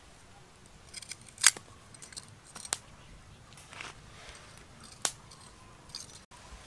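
A handful of sharp, separate clicks and taps, the loudest about a second and a half in: a metal spoon knocking against a ceramic bowl of basting sauce.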